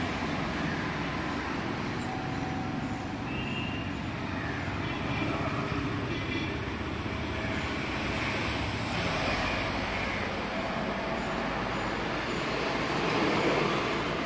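Steady low rumbling background noise, with a few faint short high chirps in the first half.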